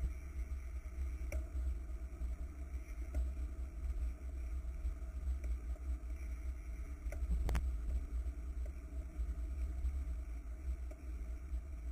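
Steady low rumble of wind and road noise on a camera mounted on a racing bicycle in motion, with a few sharp knocks, the loudest about seven and a half seconds in.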